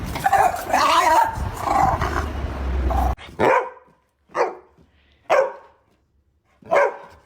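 Dog barking: a loud, noisy stretch that cuts off abruptly about three seconds in, then four short single barks spaced about a second apart.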